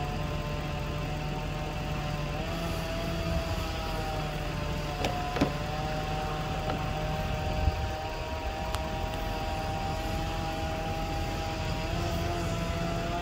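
A distant engine running steadily at a near-constant pitch, which shifts up slightly a couple of seconds in, with two sharp knocks about five seconds in.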